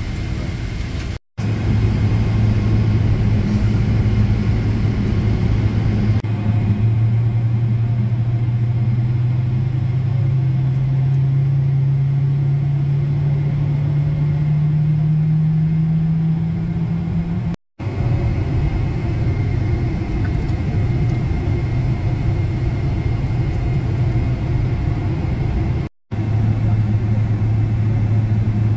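Steady low rumble inside a Boeing 777-300ER cabin on the ground, with a low hum that slowly rises in pitch over about ten seconds in the middle. The sound cuts out for an instant three times.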